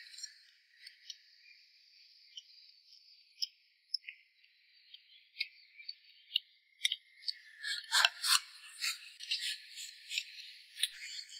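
Close-up eating sounds: irregular wet chewing smacks and clicks of chopsticks on a ceramic bowl of water spinach and rice, with a louder cluster about eight seconds in. A steady high insect drone sits behind.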